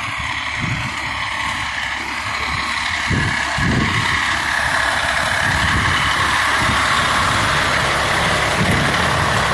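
Large truck engine running steadily, getting louder about three seconds in and holding there.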